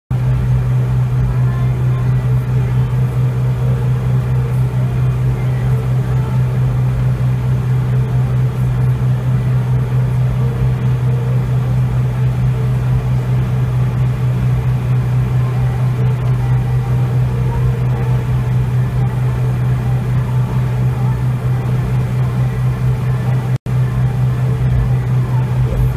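Classic car driving at a steady cruising speed, heard from inside the cabin: a constant low engine and road drone. The sound drops out for an instant near the end.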